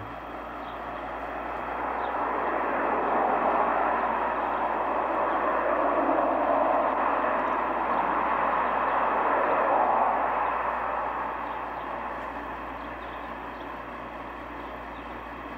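A passing vehicle: a rushing noise that swells over about two seconds, holds for several seconds and fades away again.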